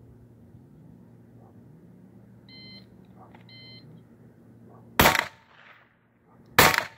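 Two gunshots about a second and a half apart, fired deliberately as a pair, with two short electronic beeps a second apart before them.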